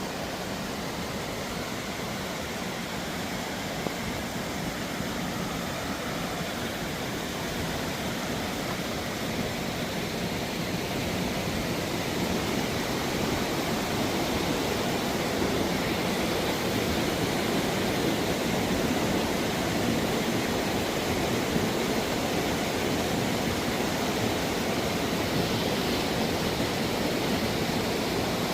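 Steady rush of Tumalo Creek's water, an even hiss with no distinct splashes, growing gradually louder through the second half.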